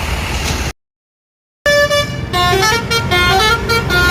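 Bus engine and street noise, cut off abruptly under a second in. After about a second of silence a bus's Basuri telolet horn plays a tune of short stepped notes.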